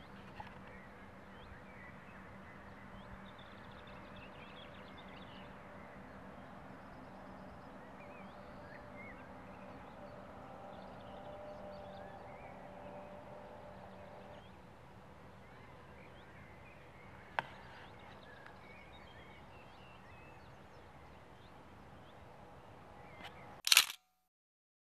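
Faint open-air ambience with a low steady hum and scattered small bird chirps in the background. A thin click comes about two-thirds of the way in, and a loud sharp clack near the end is followed by the sound cutting out.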